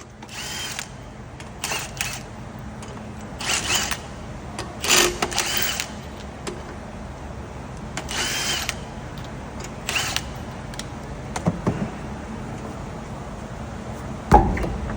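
Impact wrench spinning off the wheel's lug nuts in several short bursts, each with a pitch that rises and falls. Near the end comes one loud knock from a hammer struck against the wheel to free it.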